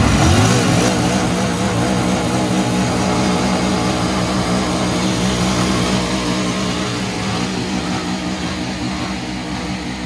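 Royal Enfield Himalayan's single-cylinder engine revved up with a short rise in pitch and held at high revs, easing slightly toward the end.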